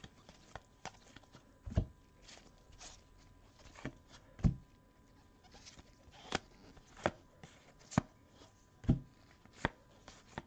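Trading cards being handled and set down on a table by gloved hands: about eight sharp taps at uneven intervals, with soft rustling of card stock and wrapper in between.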